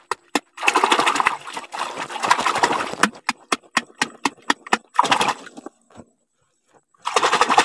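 A hand slapping and churning shallow water in quick splashing strokes, several a second, stopping about six seconds in and starting again near the end. The water is stirred to draw the fish together.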